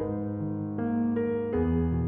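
Background instrumental music: a slow keyboard melody of piano-like notes over held bass notes.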